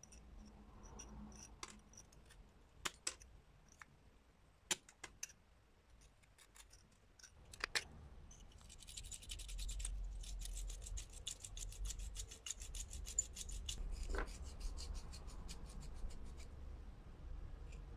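A small knife blade scraping caked rust and dirt off old corroded steel pliers. First come scattered scratches and clicks, then about halfway through a run of rapid scraping strokes lasting several seconds, with a single knock near its end.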